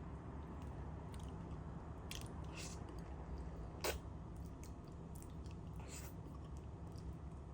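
Person chewing soft durian flesh close to the microphone, with a few short wet mouth clicks, the sharpest about four seconds in.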